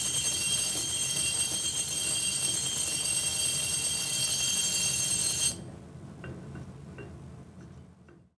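Small DC motor shaking the gyroscope rotation table as a vibration stimulus: a steady high-pitched whine over a low hum, which cuts off suddenly about five and a half seconds in. A few faint clicks follow.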